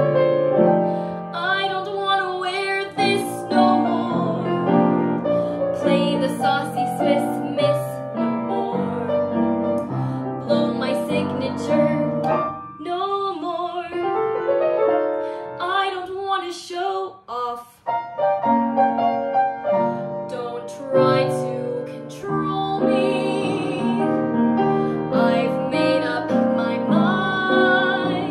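A woman singing a Broadway-style song over a piano accompaniment.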